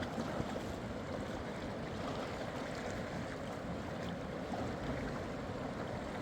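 Steady rushing of a fast-flowing mountain river.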